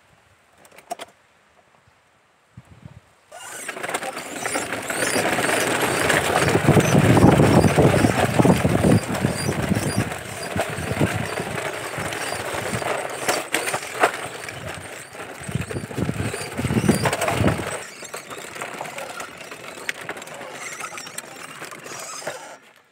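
Plastic wheels of a child's pedal car rolling over a rough pebbly concrete lane: a rattling rumble full of small clicks. It starts about three seconds in, is loudest a few seconds later, and cuts off just before the end.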